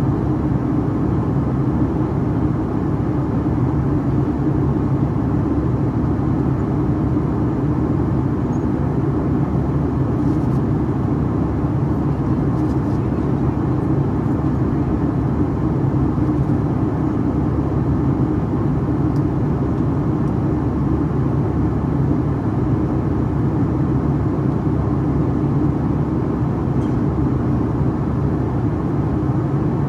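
Steady, loud drone of a Boeing 757-300's jet engine and rushing air, heard inside the cabin from a seat beside the engine in flight, with a low hum running under the roar.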